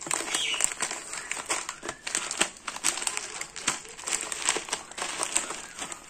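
Plastic bird-food bag crinkling as it is handled and turned over: irregular sharp crackles throughout.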